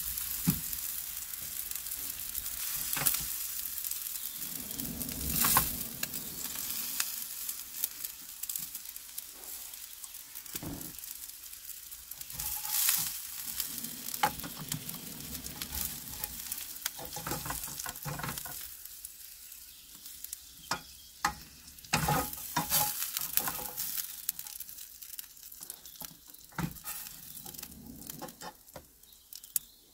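Onions sizzling in a frying pan on a portable gas stove, with the sharp clicks and scrapes of a fork stirring them and lifting them onto a plate. The sizzle fades near the end.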